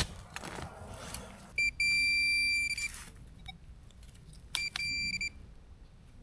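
A handheld pinpointer, a Minelab Pro-Find 40, sounds a steady high-pitched alert tone twice, the first about a second long and the second shorter, as it closes in on metal in the dig hole. A sharp knock comes right at the start.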